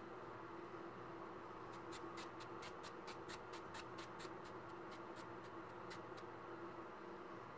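Paintbrush bristles scratching across a canvas in a run of short, quick strokes, about five a second, starting about two seconds in and stopping about six seconds in.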